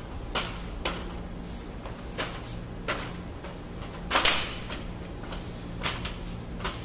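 Aluminium ladder clanking as it is handled, set against a wall and climbed: a run of sharp metal knocks a second or so apart, the loudest clatter about four seconds in, over a steady low hum.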